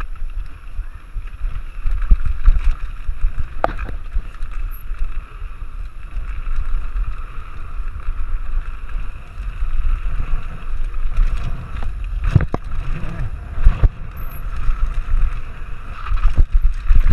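Mountain bike riding fast down a dirt singletrack: wind buffeting the microphone over a low rumble of tyres on dirt, broken by several sharp knocks and rattles as the bike hits bumps.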